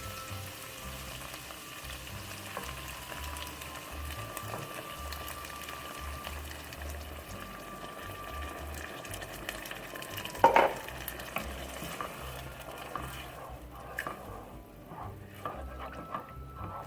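Pork, garlic, onion and shrimp paste sizzling in a pan while being stirred as coconut milk is added. There is one sharp knock of a utensil on the pan about ten seconds in, and the sizzle dies down near the end.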